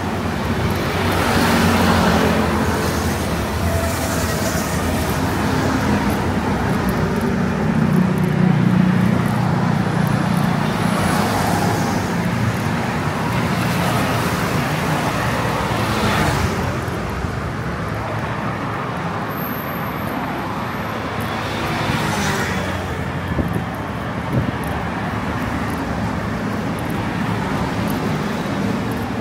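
Busy city road traffic: a steady hum of engines and tyres, with several vehicles passing close by one after another.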